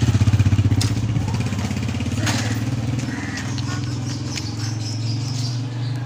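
A small engine running steadily with an even pulsing beat, loudest in the first second.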